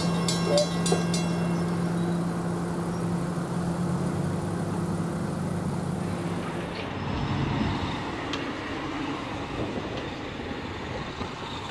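Railroad crossing bells ringing in rapid strokes, stopping about a second in as the crossing signal shuts off. A SEPTA light rail trolley hums steadily as it pulls away, then road traffic with a car driving past.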